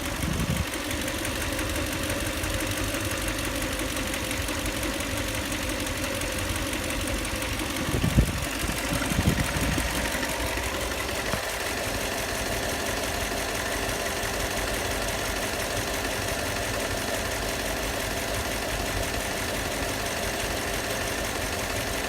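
Toyota 2UZ-FE 4.7-litre V8 idling with a steady knock that the owner cannot trace; valves have been checked and one shop suggested the camshafts. A few louder thuds come around eight to ten seconds in.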